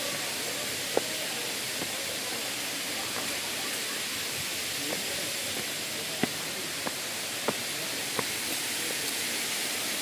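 Steady rushing hiss of the waterfall, with a few sharp taps of footsteps on the rocky path, most of them in the second half.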